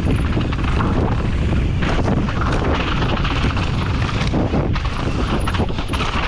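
Mountain bike descending a rough dirt trail at speed: wind noise on the microphone, tyres rolling over dirt and rock, and a constant chatter of small knocks and rattles from the bike over the rough ground.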